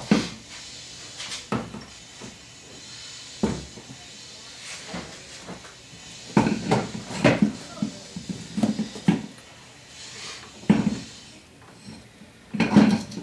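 Irregular knocks, clunks and rattles of metal parts and hand tools being handled during hands-on work on an ATV, with a busy run of clatter about halfway through and a loud clunk near the end.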